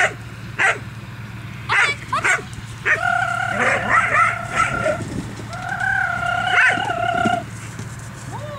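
Young Groenendael (Belgian Shepherd) barking sharply about four times, then giving two long, high-pitched wavering cries of a second or two each.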